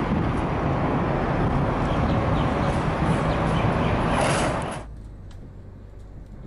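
Double-decker buses idling and moving, a steady low engine rumble with traffic noise. About five seconds in it drops suddenly to a much quieter background.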